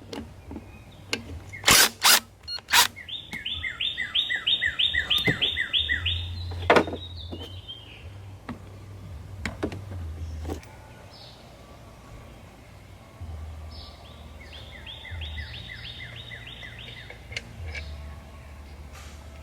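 A bird singing a fast series of about a dozen repeated chirps, twice. In the first seven seconds there are a few sharp knocks, and a steady low hum runs underneath.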